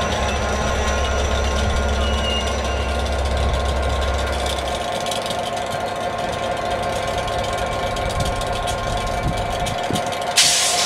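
A Class 67 diesel locomotive's two-stroke V12 engine idling with a steady hum. A deep rumble underneath stops about halfway through. Near the end comes a sudden sharp hiss of air.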